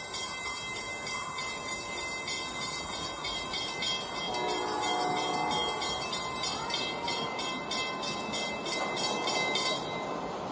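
Toy LEGO train running on plastic track: a steady motor whine with a regular clicking of wheels over the track joints.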